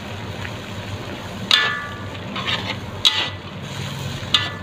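Metal spatula stirring vegetables in a steel wok: scraping, with three ringing clanks against the pan about a second and a half apart, over a steady low hiss from the simmering sauce.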